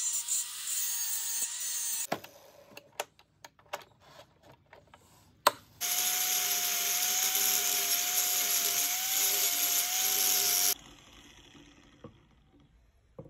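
A small handheld power tool cutting a metal part runs for about two seconds and stops. A few clicks and one sharp knock follow, then it runs steadily again for about five seconds and cuts off.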